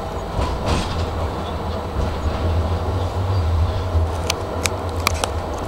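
Running noise of a tram heard from inside, near the driver's cab: a steady low rumble of motors and wheels on the rails. About four seconds in come a few sharp clicks in quick succession.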